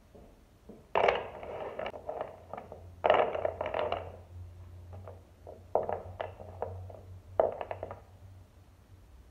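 Small wooden offcuts clattering and knocking on a plywood workbench as they are picked up, shuffled and set down, in four short bursts of knocks and scraping, with a faint low hum underneath.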